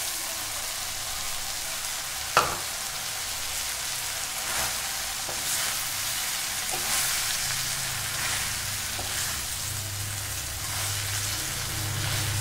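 Soaked drumstick leaves sizzling as they are stirred into frying onion and tomato in a steel kadai, the slotted steel spoon scraping through them, with one sharp clack of the spoon on the pan about two and a half seconds in.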